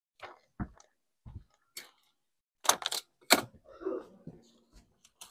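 Irregular clicks and knocks of objects being handled: two dull thumps in the first second, then a few sharp clicks about three seconds in.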